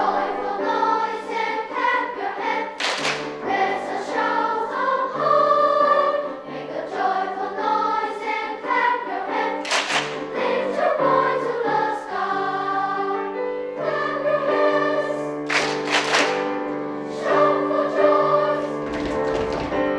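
Children's equal-voice school choir singing in parts, sustained notes moving every second or so, with a few sharp sung 's' consonants.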